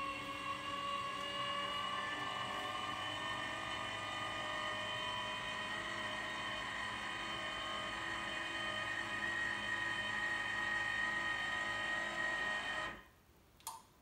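Electric lift motor of a pop-up coffee-machine cabinet whining steadily as it raises the worktop lid and the espresso machine. It stops suddenly near the end, followed by a light click.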